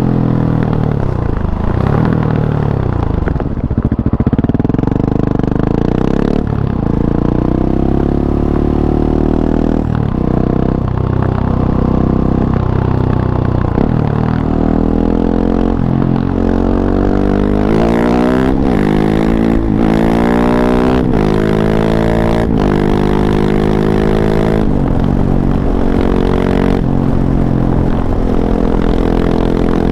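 KTM 690 SMC-R supermoto's single-cylinder engine through an Arrow Race-Tech exhaust with the dB killer fitted, being ridden with the revs rising and falling. About halfway through it pulls hard through several upshifts, each rising pitch cut off by a brief break at the shift.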